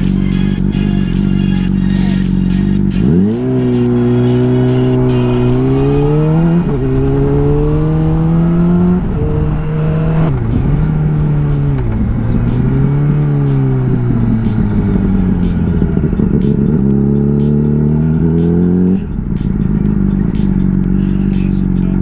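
Honda CBR600RR's inline-four engine, heard from on the bike. It idles, then from about three seconds in it climbs in pitch as it accelerates, with the pitch dropping at each gear shift. It eases off and pulls again, then falls back to a steady idle about 19 seconds in.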